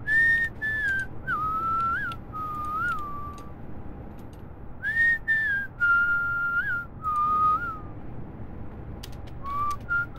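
A man whistling a tune through pursed lips: a phrase of three gliding notes, a pause of about a second, then the same phrase again, with a couple of short notes near the end. A faint steady hum lies underneath.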